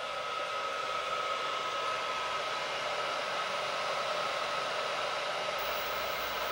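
Steady whir of electrical cooling fans with a thin, constant high hum, from e-bike battery chargers running on a solar battery bank under about 500 to 700 watts of charging load.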